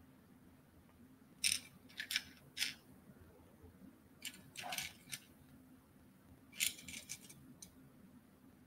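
Loose glass, pearl and metal beads clicking and clinking against each other and a glass dish as fingers sort through them, in several short bursts of faint clicks.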